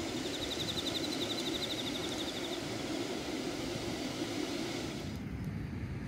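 Steady outdoor background noise, a low hum with a hiss over it, and a rapid high chirping trill during the first couple of seconds. About five seconds in the hiss thins out.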